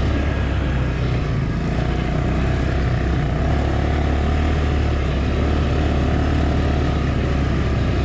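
ATV engine running steadily under way, a constant low drone with no change in speed.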